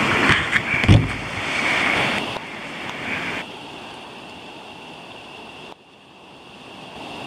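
Rushing river water with wind noise on the microphone, and a loud thump about a second in.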